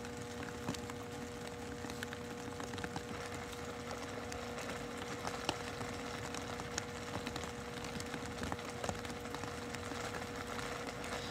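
A steady low hum with a faint even background hiss and a few small scattered clicks and knocks.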